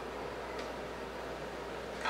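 Quiet auditorium room tone between pieces: a steady hiss with faint rustling, and a faint click about half a second in.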